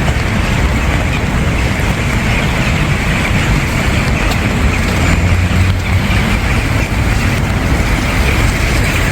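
Steady rain hiss with a continuous low rumble underneath.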